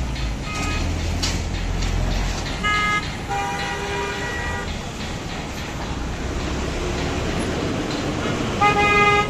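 Vehicle horns honking in road traffic: several honks, one lasting over a second, the loudest near the end, over the low rumble of engines and passing traffic.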